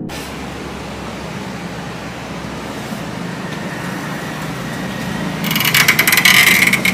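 Steady street traffic noise. About five and a half seconds in, a loud burst of rapid clattering and rustling as the glass shop door is pulled open by its metal handle and someone comes through with a bag.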